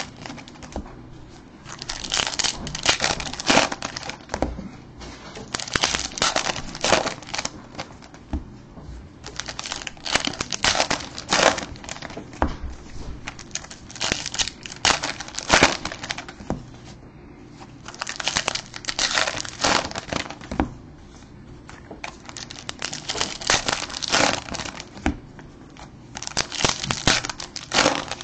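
Baseball card pack wrappers crinkling and tearing open as packs are opened by hand, in about seven bursts a few seconds apart.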